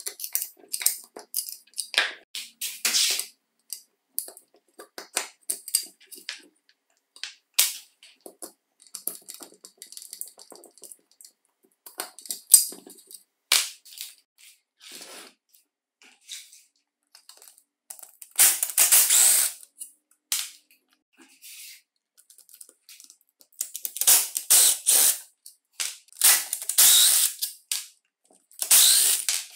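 Small metallic clicks and taps from a screwdriver and loose parts on the open aluminium housing of an old electric drill. In the second half come several short harsh bursts, a second or so each, as a cordless screwdriver drives screws into the housing.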